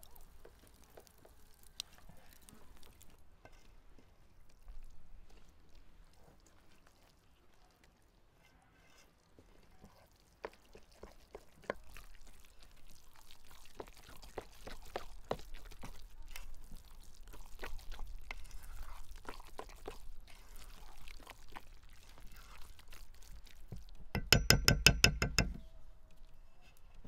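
Hand squelching and kneading a wet minced raw beef-liver mixture in an enamel bowl: many small wet clicks and slaps. Near the end, a loud rapid rattling burst lasting about a second and a half.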